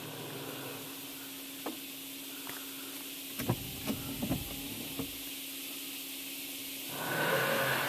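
Laserwash touchless car wash heard from inside the car during the pre-soak: a steady spray hiss with a low hum, a few short knocks around the middle, then a louder rush of spray with a steady whine starting near the end.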